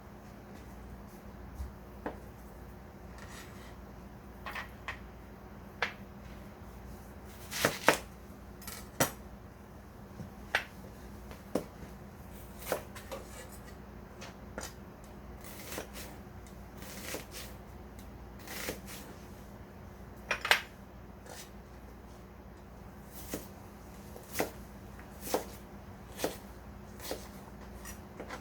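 Irregular clinks and knocks of kitchenware and ingredient containers being handled and set down, about one a second, over a steady low electrical hum.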